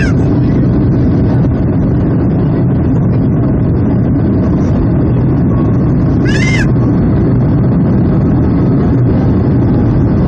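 Boeing 757-200's jet engines running loud and steady, heard from inside the cabin. A brief high squeal rises and falls about six seconds in.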